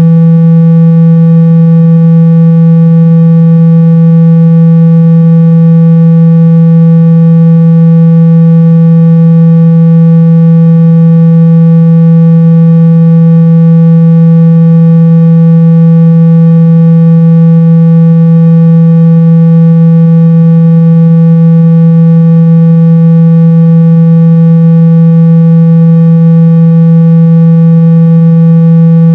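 Steady, very loud low-pitched tone with a buzzy edge, holding one pitch throughout. It is a speaker-cleaning tone, played so that the phone speaker's cone vibrates and shakes out dust and water.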